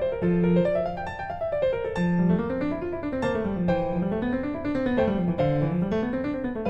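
Background piano music, with rising and falling runs of notes over a bass line that swings up and down.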